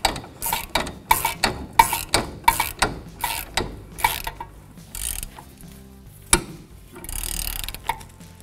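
Hand ratchet clicking in short back-and-forth strokes, about three clicks a second, as the 15 mm nut is run down onto the stud of a new sway bar link. The clicks grow fainter about halfway through, then come one sharp click and a brief quick whirr near the end.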